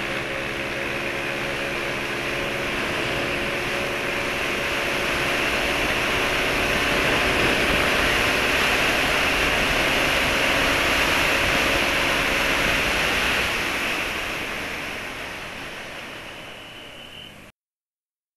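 Wind rushing over the microphone of a scooter at high speed, with the scooter's engine drone faintly underneath. The rush grows louder as the scooter accelerates toward 100 km/h, holds, then eases off and cuts out suddenly shortly before the end.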